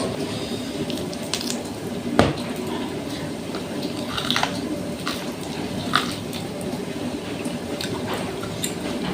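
Wet chewing and mouth smacks of someone eating, with scattered small clicks and a sharper knock about two seconds in, over a steady low background hum.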